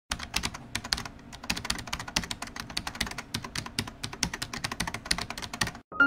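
Computer keyboard typing: fast, uneven key clicks that stop abruptly just before the end.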